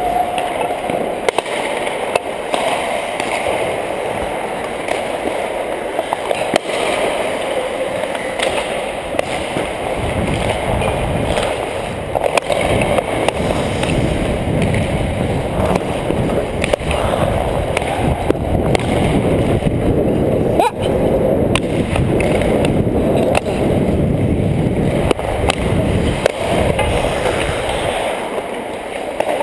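Ice hockey skates carving and scraping on the ice, heard from a camera worn by the skater, with wind rumbling on its microphone and a few sharp knocks of the hockey stick.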